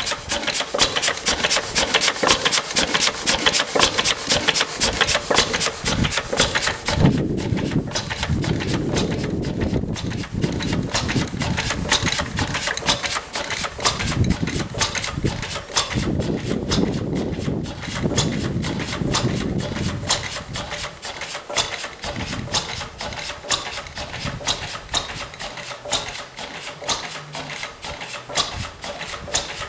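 Vintage single-cylinder Lister petrol/paraffin stationary engines running in turn, each with a steady, even exhaust beat. The beat is quieter in the last third.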